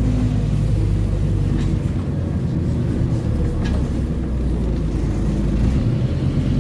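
Scania OmniCity N230UD double-decker bus's engine running as the bus drives along, heard from inside the lower deck, with a steady low drone that eases in the middle and builds again near the end. A few light rattles from the interior.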